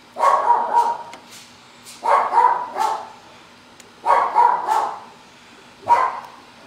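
Pet dog barking in short bursts, two or three barks roughly every two seconds, with a single sharp bark near the end: alarm barking at a delivery person arriving at the house.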